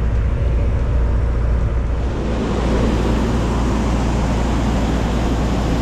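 Steady low motor drone with a rushing noise that grows louder about two seconds in.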